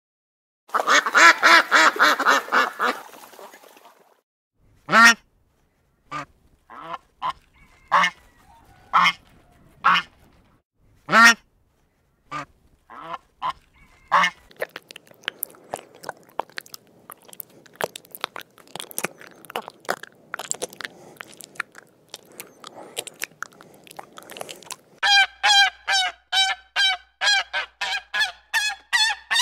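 Animal calls: a dense flurry of short, sharp calls, then single calls about a second apart, then a faint busy chatter of many calls, and near the end a fast run of evenly repeated, honk-like calls.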